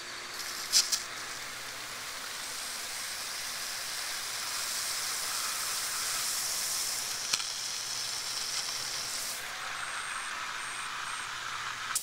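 Pond water pump running with a faint steady low hum while water sprays and hisses from a fitting on its outlet. There is a short click about a second in.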